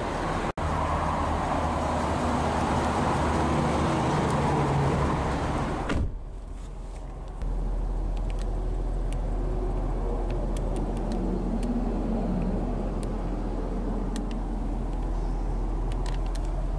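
Ford 6.7-liter Power Stroke turbo-diesel V8 starting up and running, heard from inside the cab. It is loud for the first six seconds, drops sharply with a click, then settles into a steady low idle.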